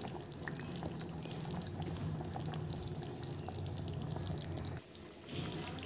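Chicken curry with potatoes simmering in a pan: soft bubbling with scattered small pops over a steady low hum. The hum stops about a second before the end.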